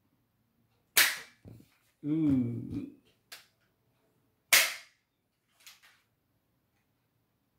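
Toy gun firing toy bullets twice, about three and a half seconds apart, each shot a sharp crack. A short voice-like sound comes between the two shots.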